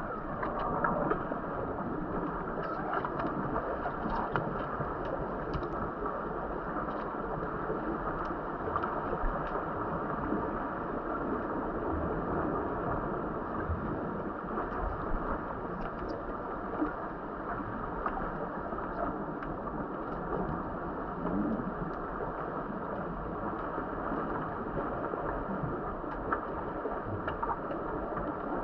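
Muffled underwater noise of a swimming pool with swimmers and scuba divers in it, picked up by a camera underwater: a steady rushing and bubbling, with faint scattered clicks.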